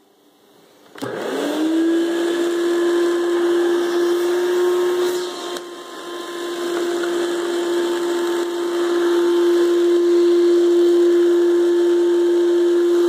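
Hoover Celebrity 2 Elite canister vacuum switched on about a second in, its motor spinning up with a rising whine and settling into a steady hum with airflow hiss. The loudness dips briefly near the middle and builds back. The motor has been freshly tuned up with a new bearing and runs smoothly.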